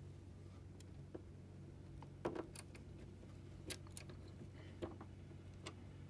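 Small screwdriver turning screws to fasten a replacement sensor circuit board onto its plastic mount: scattered light clicks and ticks of tool and screws over a low steady hum.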